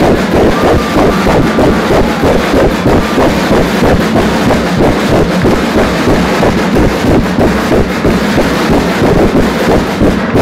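Cheerdance routine music blaring loud over the venue's speakers with a steady heavy beat, the sound overloaded and smeared on the recording.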